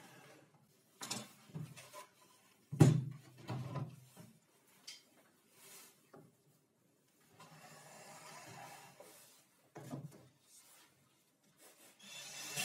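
Plywood and wooden fence parts being handled on a plywood table top: a few sharp knocks as pieces are set down or bumped, the loudest about three seconds in, with stretches of sliding and rubbing between them.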